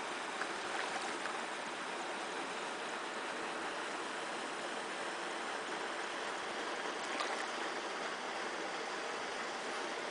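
Fish rising to Hexagenia mayflies on the surface, with a few faint soft splashes in the first second or so and a slightly stronger one just after seven seconds, over a steady even hiss.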